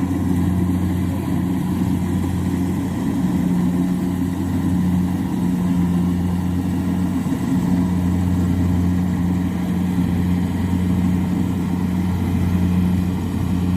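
Kubota rice combine harvester's engine running steadily at constant speed, a low even hum with no change in pitch.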